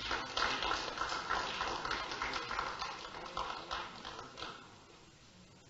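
Irregular footsteps and shuffling as a person walks across the council chamber floor to the rostrum, heard through the chamber microphones; the taps fade out near the end.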